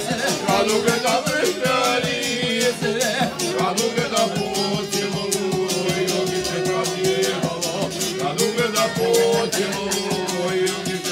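Live folk music: a violin plays the melody over a quick, steady strummed beat on a long-necked lute, an instrumental break between sung verses.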